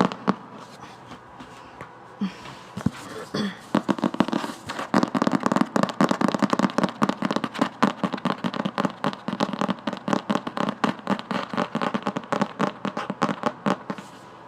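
Fingernails tapping on a book in ASMR: a few scattered taps, then from about four seconds in a fast, continuous run of sharp clicks, several a second.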